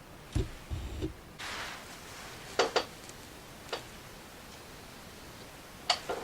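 Autofocus of a Sony DT 35mm f/1.8 SAM lens: a few low knocks, a brief whirr of the focus motor, then a handful of sharp mechanical clicks spread over several seconds.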